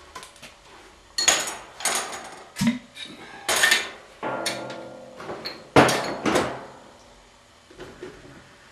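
Glass mason jug and blender jar being handled and set down: a string of sharp knocks and clinks, irregular and about half a second to a second apart, with a brief ringing rub about four seconds in.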